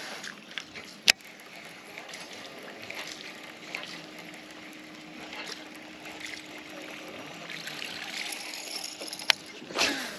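Casting and retrieving with a baitcasting rod and reel: a sharp click about a second in as the reel is engaged, steady winding with faint water sounds, then another click and the whoosh of the next cast near the end.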